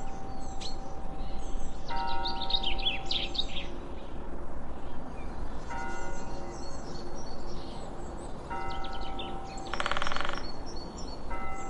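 Slow chime-like notes ring out about every three seconds over a steady low hum, with bird chirps. The chirps are high and quick a couple of seconds in, and a louder rapid trill comes near the end.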